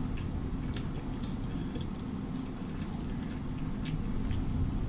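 Chewing a mouthful of chili cheese dog: soft, scattered wet mouth clicks over a steady low hum.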